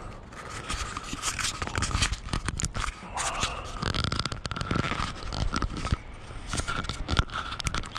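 Handling noise from a body-worn camera being strapped on: irregular rubbing, scraping and clicking as the microphone brushes against straps and clothing, with a faint steady whine underneath.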